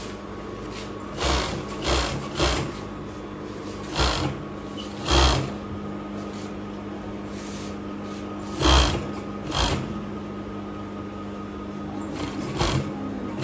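Industrial overlock sewing machine stitching in short bursts of under a second, about eight times, over a steady hum.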